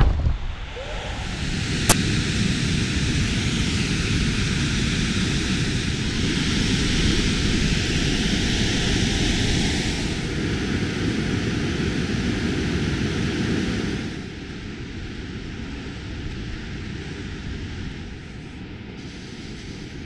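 Steady, loud rushing of the Krimml Waterfalls, water crashing down into the pool and spray, a constant noise with no pitch. There is a single sharp click about two seconds in, and the rushing drops to a quieter level about two-thirds of the way through.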